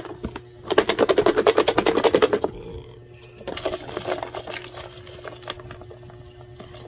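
Folded paper slips rattling inside a clear plastic box as it is shaken rapidly for about a second and a half, then softer rustling as a hand rummages among the slips to draw one. A faint steady hum runs underneath.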